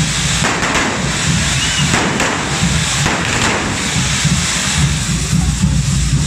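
Carretilles, hand-held firework fountains mounted on devils' forks, hissing steadily as they spray sparks, with a few sharp cracks mixed in.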